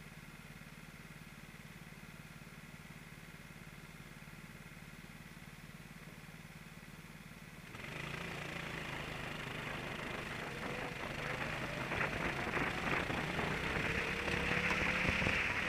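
Kart engines idling steadily on the grid, then about eight seconds in they open up as the start lights go green, running much louder with the pitch rising as the karts accelerate away.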